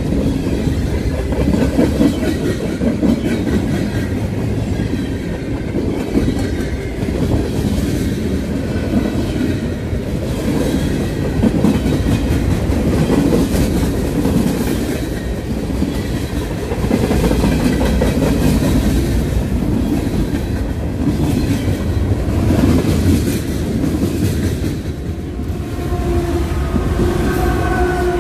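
Freight train rolling past close by: steel wheels clicking over the rail joints, with the cars rumbling and rattling. In the last couple of seconds a steady pitched tone joins as a diesel locomotive in the middle of the train comes alongside.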